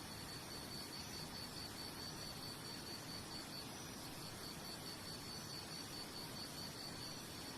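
A cricket chirping in a fast, even, high-pitched pulsed trill over a soft steady hiss.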